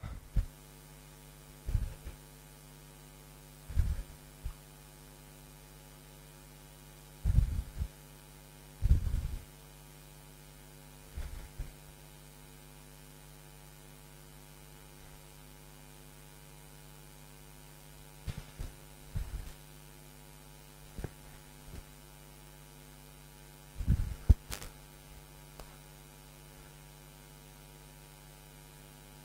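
Steady mains hum in a headset microphone, broken by about ten short, irregular puffs of breath blowing on the mic as a cyclist exhales while pedalling a spin bike, with a sharper click near the end.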